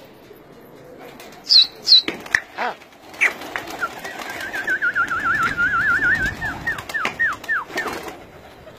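A flock of domestic pigeons flapping their wings and cooing. Two sharp, high chirps come about a second and a half in, and a long warbling whistled trill in the middle is followed by several quick falling whistles.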